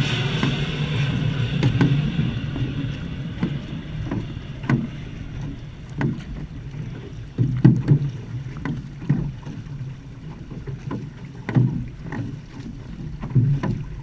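Outrigger canoe (va'a) paddles striking and pulling through the water in a steady stroke rhythm, a splash about every second and a half. Under the splashes runs a rushing of water and wind that fades over the first few seconds.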